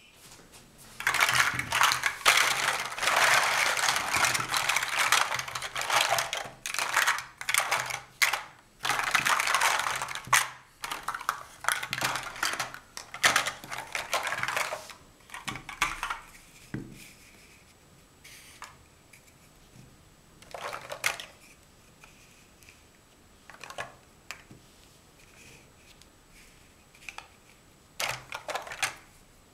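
Large hollow plastic Mega Bloks First Builders blocks clattering against each other as hands rummage through and spread out a heap of them, a dense rattle for the first half. After that come only a few separate knocks as single blocks are picked up and set down.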